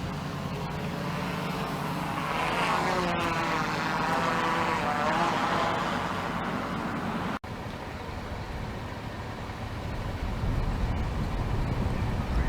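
A vehicle engine passing by, swelling and fading over a few seconds over a steady low hum, with a brief dropout about seven seconds in.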